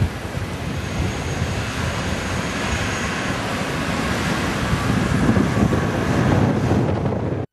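Wind buffeting the microphone over the engine of a 4WD driving through soft beach sand, the rumble growing louder as the vehicle comes close, then cutting off suddenly at the end.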